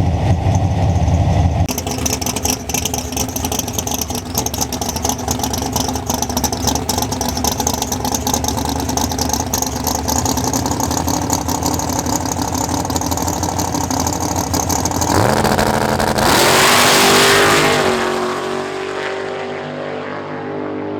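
Big-block Chevy drag-racing engine running steadily, then revving up sharply about 15 seconds in at wide-open throttle for a pass down the strip. It is loudest a second or two later, then its pitch drops and it fades.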